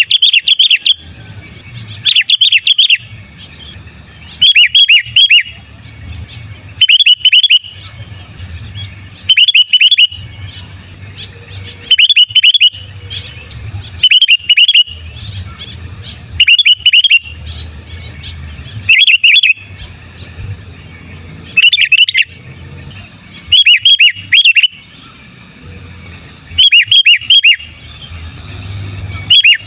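Sooty-headed bulbul (kutilang) singing loudly: short bubbly phrases of quick whistled notes, repeated about every two and a half seconds.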